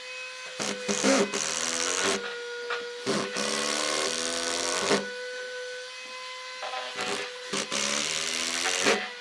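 Power tool working wood in three bursts of about two seconds each, its pitch shifting under load, over a steady hum.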